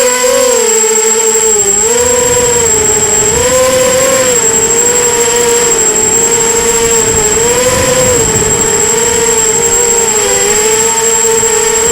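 Brushless motors and propellers of a 250-size FPV racing quadcopter whining in flight, the pitch rising and falling with throttle changes, with a steady high-pitched whistle over it.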